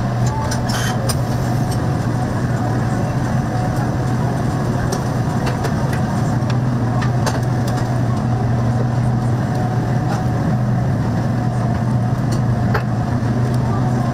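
Steady low hum and drone of commercial kitchen exhaust hood fans running. A few light clicks of metal prep trays being handled.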